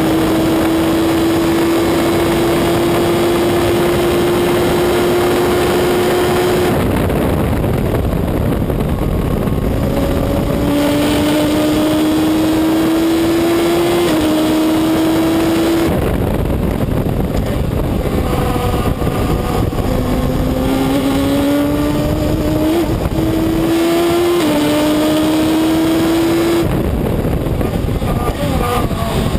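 Reynard Inverter sports prototype's engine heard from its open cockpit, held at high revs on a straight, then backing off about 7, 16 and 27 seconds in. Between these it pulls hard again, its pitch rising through several quick upshifts, over a constant rush of wind and road noise.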